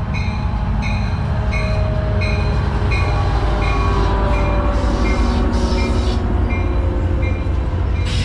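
Amtrak San Joaquins passenger train running along the station platform, its locomotive and cars making a steady low rumble with thin squealing tones that slide downward. A bell rings steadily about twice a second throughout.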